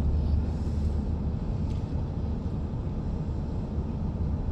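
Steady low rumble of road and engine noise inside the cabin of a car moving at road speed.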